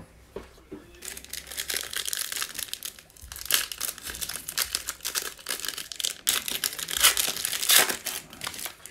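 Shiny wrapper of a 2019-20 Illusions basketball card pack crinkling as it is handled and torn open by hand, in dense crackles that grow loudest near the end.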